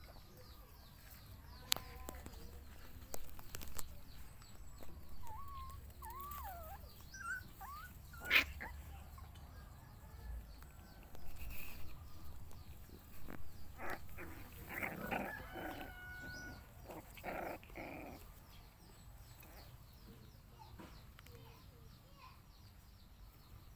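Puppies play-fighting, giving short whines and yips that waver up and down in pitch, with a denser run of louder yelps and barks in the second half.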